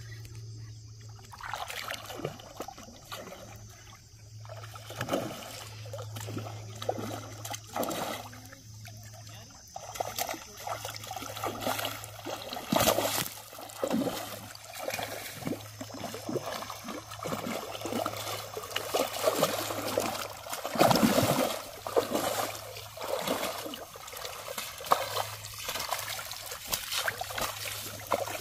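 A hooked fish thrashing at the water's surface in shallow water, throwing up a run of irregular splashes, loudest about two-thirds of the way through.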